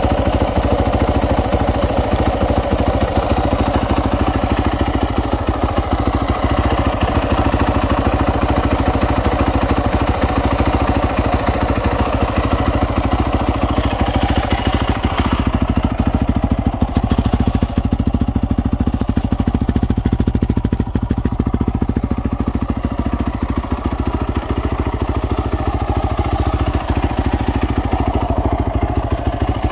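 2010 Yamaha YZ450F's fuel-injected 450 cc single-cylinder four-stroke engine idling steadily. The idle is even, with no revving. The seller calls the engine quiet and takes that as a sign that it is fresh.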